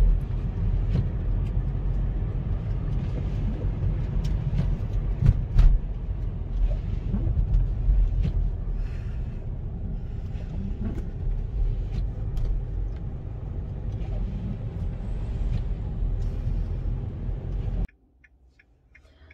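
Hyundai car driving slowly on a wet road, heard from inside the cabin: a steady low rumble of engine and tyres with a hiss on top and a few sharp knocks. It cuts off suddenly near the end.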